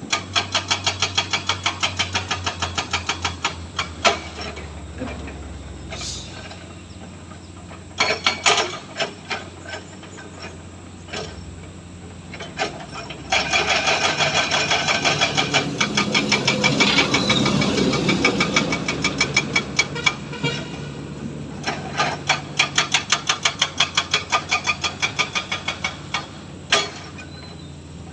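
Excavator at work: the diesel engine runs steadily under bursts of rapid, evenly spaced metallic knocks, about six a second, each burst lasting a few seconds.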